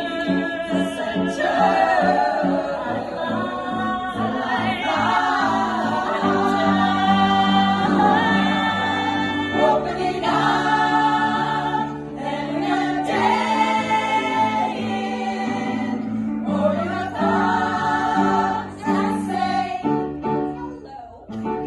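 Live music: a group of women singing a show tune in close harmony, several voices together over sustained low notes.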